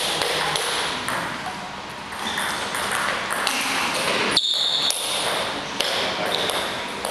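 Table tennis ball clicking off bats and table in a rally, a string of short sharp ticks over the reverberant hum of a large hall.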